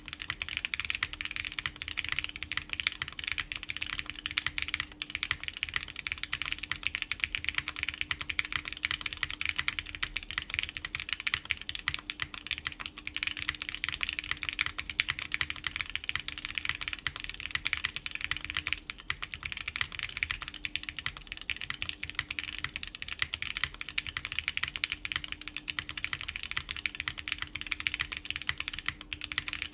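Continuous typing on a Plywrks Spyder TKL mechanical keyboard, top-mounted, with factory-lubed Gateron Khonsu switches, a polypropylene plate and GMK keycaps: a dense, unbroken run of keystroke clacks.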